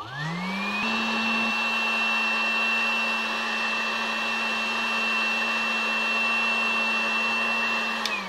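Electric hot air gun switched on with a click, its fan motor rising over about a second to a steady whirring hum with a rush of air. It is switched off near the end and winds down with falling pitch. It is heating the smart band's case to soften the glue that seals it.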